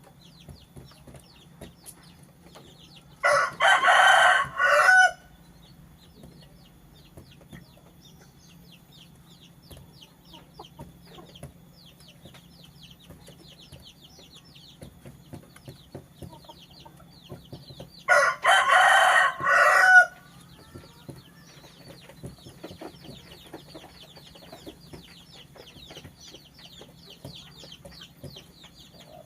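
Rooster crowing twice, each crow about two seconds long and some fifteen seconds apart, over a steady low hum and faint, rapid high-pitched chirping.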